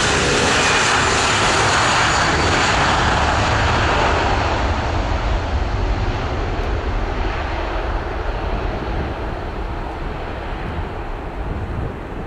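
Airbus A340's four jet engines at takeoff thrust during the takeoff roll: loud, steady engine noise that starts to fade about four seconds in, losing its high hiss as the airliner moves away down the runway.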